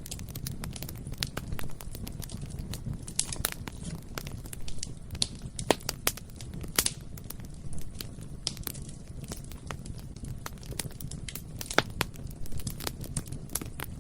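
Bonfire burning: a steady low roar of flames under many irregular sharp crackles and pops, with a few louder snaps midway and near the end.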